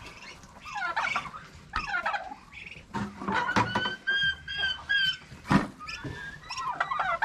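Domestic turkeys and other poultry calling as they crowd for feed, a run of repeated calls, with three short, clear piping notes in the middle. A sharp knock comes about five and a half seconds in.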